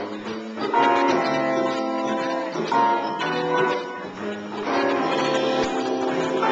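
Live band playing an instrumental song intro, led by electric guitar chords that change about every two seconds.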